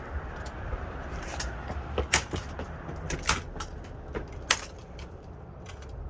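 Scattered sharp plastic clicks and knocks from hands working at a battered camcorder's cassette compartment, trying to get the tape out, over a low steady rumble.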